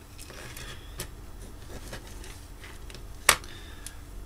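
Plastic parts of a Bose QC-15 headphone earcup being handled by hand: faint rustling and small clicks, with one sharp click a little after three seconds in.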